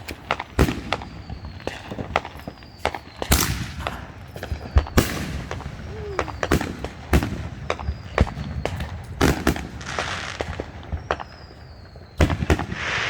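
Fireworks going off: many sharp bangs at irregular intervals, some with a rumbling tail, and crackling bursts near the end.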